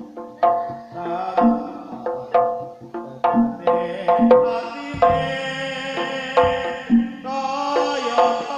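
Javanese gamelan music accompanying a Barongan dance: struck pitched metal instruments ring out a melody at roughly two strokes a second over drum strokes, with a denser high ringing layer joining about seven seconds in.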